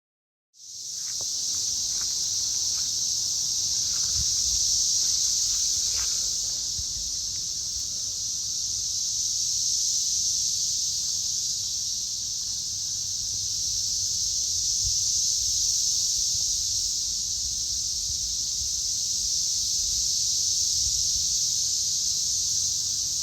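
Dense chorus of Brood XIX periodical cicadas, the males singing together in a loud, steady high-pitched drone that swells and eases gently every few seconds. It cuts in suddenly about half a second in.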